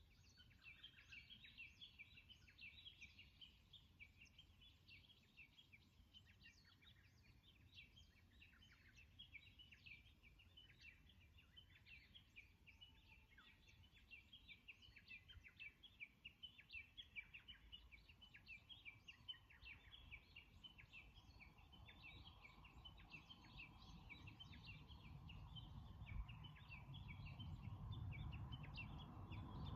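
Wild birds chirping continuously in a quick, busy stream of short high notes. A low rumble swells steadily louder over the last third.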